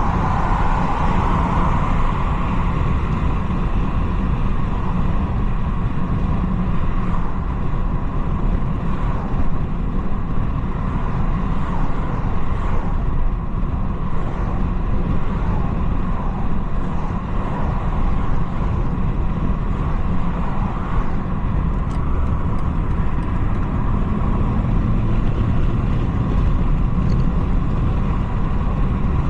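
BMW 330i (G20) with its 2.0-litre turbocharged four-cylinder underway at steady speed: a continuous rumble of engine and road noise with no sharp changes.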